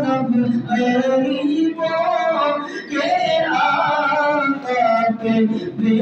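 A man singing an unaccompanied Islamic devotional chant, in long drawn-out phrases with held, bending notes.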